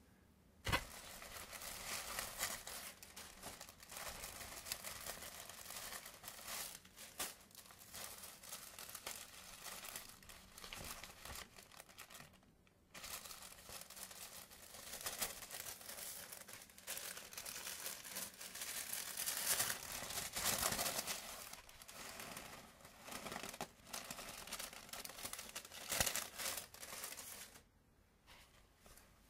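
Folded paper sheets crinkling and rustling as hands unfold them, with a sharp click about a second in and a short pause near the middle.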